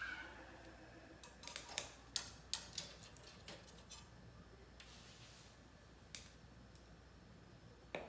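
Light clicks and taps from small objects being handled: a quick cluster of sharp ticks between about one and a half and three and a half seconds in, a brief soft hiss around five seconds, then a couple of single clicks.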